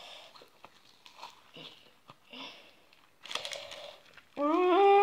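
Thick slime being squeezed and stretched by hand, giving soft, scattered crackling and popping, with a denser run of crackles about three seconds in. Near the end a drawn-out vocal sound, held and then falling in pitch, is the loudest thing.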